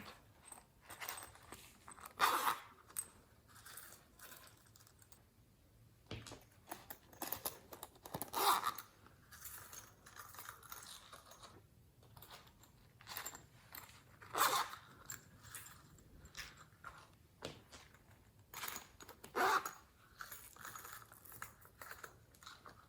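Glossy slime being kneaded and stretched by hand, making irregular sticky clicks and pops, with a louder squelch about every six seconds.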